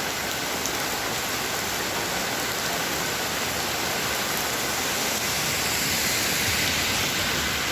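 Heavy rain falling steadily, a dense, even wash of noise that grows a little louder about six seconds in.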